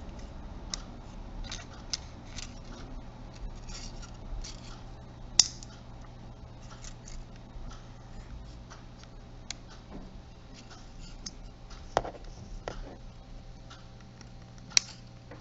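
Plastic cover of a JVC Everio camcorder being worked into place by hand: light scratching and rubbing of plastic parts with scattered small clicks, and a few sharper clicks, the loudest about five seconds in.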